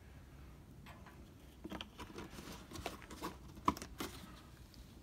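Scattered light clicks and taps from a plastic oil jug being handled while a last bit of engine oil is topped up through a funnel, the sharpest tap a little after halfway.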